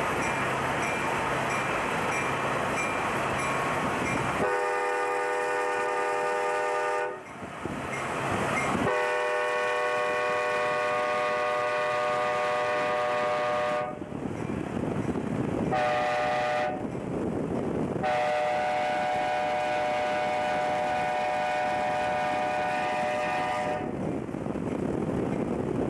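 Amtrak F40PH diesel locomotive's chord air horn blowing the grade-crossing signal, two long blasts, one short, and one long, the warning for a road crossing just ahead. Under it runs the steady rumble of the train and wind noise from pacing it at speed.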